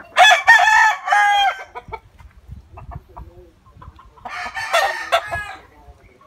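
Gamefowl roosters crowing: a long crow right at the start lasting about a second and a half, and a second crow about four seconds in.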